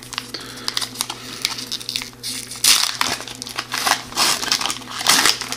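Foil wrapper of a 2015-16 O-Pee-Chee hockey card pack crinkling and tearing as it is torn open by hand, in irregular crackles, loudest about halfway through and near the end.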